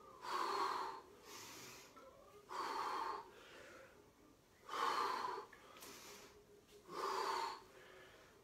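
A man breathing hard in time with kettlebell deadlift reps: four loud breaths about two seconds apart, with quieter breaths between them.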